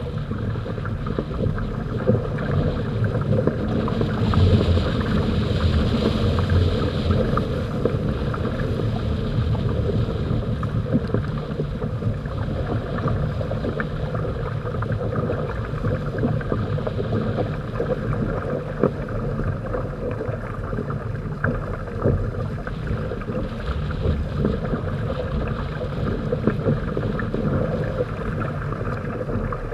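Water rushing and splashing along the hull and outrigger amas of a Hobie Tandem Island trimaran sailing at speed, with wind buffeting the microphone.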